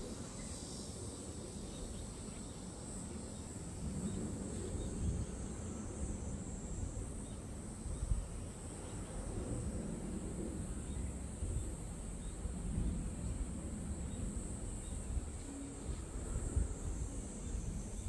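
Wind buffeting the microphone in uneven low gusts that swell every few seconds, over a steady high-pitched drone of insects.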